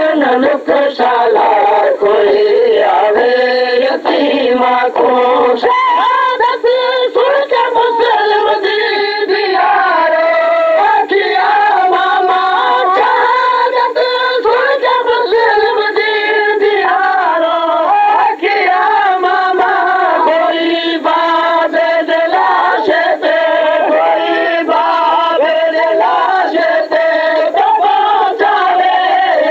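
Noha, a Shia lamentation chant, sung without a break, with long held and bending melodic lines.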